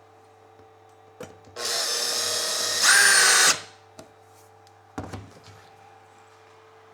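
Handheld power drill run in one burst of about two seconds, speeding up and getting louder partway through before stopping. A click comes just before it, and a knock a couple of seconds after.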